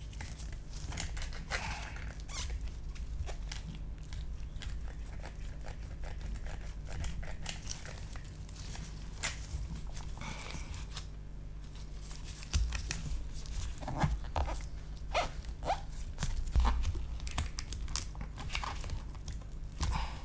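Irregular crackling, squeaking and small clicks as a MacBook Pro battery cell is pried away from the adhesive holding it to the case, over a low handling rumble. The clicks come thicker in the second half.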